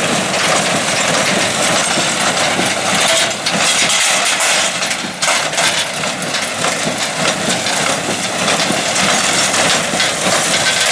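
Tractor and New Holland small square baler running steadily in the field, with a few brief knocks around the middle.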